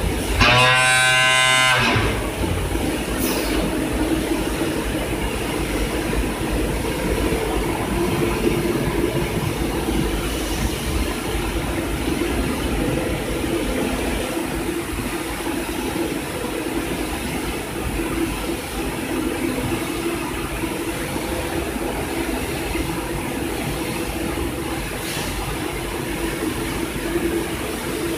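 Flour-packing line machinery running steadily: a continuous mechanical noise with a low hum. A wavering tonal whine sounds for the first couple of seconds.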